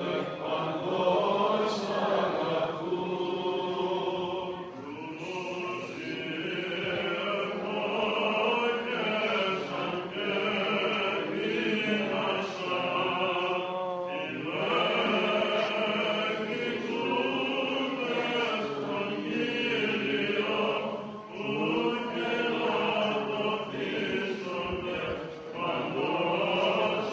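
Greek Orthodox Byzantine chant sung by men's voices: a melody moving in phrases over a steady held low drone note (the ison), with short breaks between phrases.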